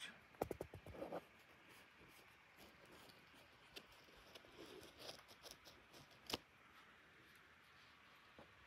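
Faint handling sounds of a laptop keyboard: a cotton swab rubbing on its metal backplate and hands moving the keyboard, with a few light clicks in the first second and one sharper click about six seconds in.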